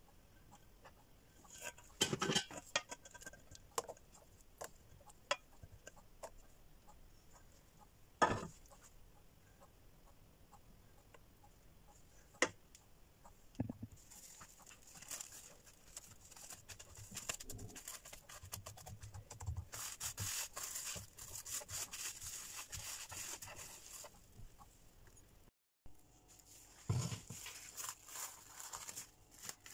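Saucepan knocking and scraping against a ceramic dish as lemon curd is poured out, followed by a few separate knocks and then a long stretch of rustling. Near the end, plastic cling film crinkles as it is pressed onto the curd.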